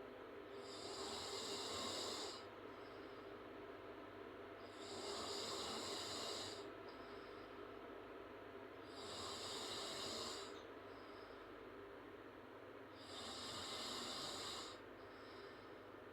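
A woman snoring through an open mouth, slow and regular: four breathy snores about four seconds apart, each lasting a little under two seconds.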